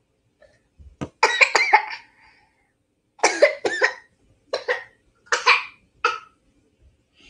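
A person coughing in several short bouts, the first and longest about a second in, the rest spread over the next few seconds.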